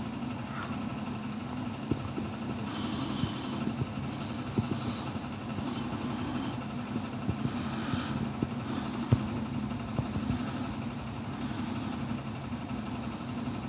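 A steady low mechanical hum, with a few faint clicks and knocks scattered through it.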